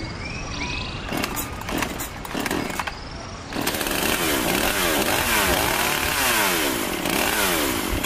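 A chainsaw cuts in loudly about three and a half seconds in and runs, its engine revving up and down again and again. Before it come birdsong and a scatter of sharp clicks.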